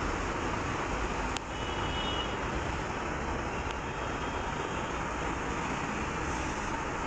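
Steady rushing background noise like road traffic, with one sharp click a little over a second in.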